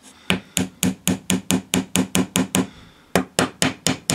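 Small hammer tapping a glued metal pin into a PVC-pipe sword handle in quick, even blows, about four a second, with a short pause a little past halfway before the tapping resumes.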